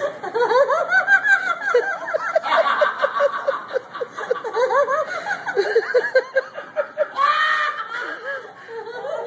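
A woman laughing helplessly and without a break, in quick rising-and-falling hoots, with a higher, louder burst about seven seconds in. This is the uncontrollable 'holy laughter' of being 'drunk in the Spirit' at a charismatic revival meeting.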